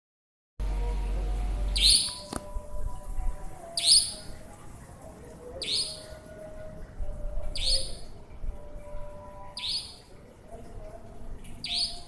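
Nightjar (burung cabak) calling: a short high-pitched call repeated about every two seconds, six times.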